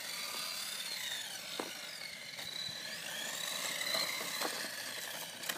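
Latrax Rally RC car's small electric motor and drivetrain whining as it is driven. The pitch rises and falls repeatedly with the throttle, with a few light ticks.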